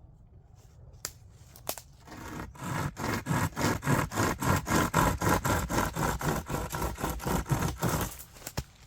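British Army folding trench saw cutting through wood: after a couple of light clicks as the blade is set, a quick, steady run of rasping push-and-pull strokes starts about two seconds in and stops near the end, the blade going through without trouble and leaving a fairly clean cut.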